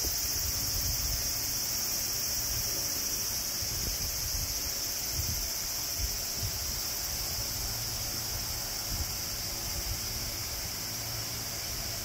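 A steady, high-pitched chorus of night insects, with a low uneven rumble of wind on the microphone.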